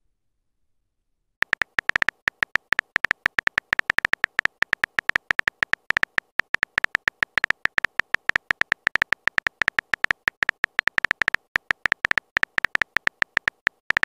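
Simulated phone-keyboard typing clicks from a texting-story app: a rapid, uneven run of short key taps, starting about a second and a half in, as each message is typed out letter by letter.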